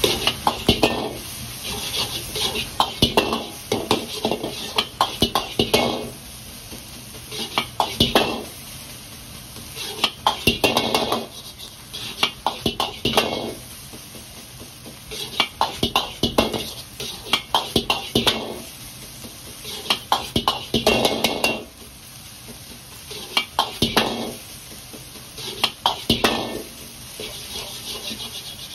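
Metal wok ladle scraping and clacking against an iron wok as egg fried rice is stir-fried, in bursts of quick strokes about every two to three seconds, over a steady hiss.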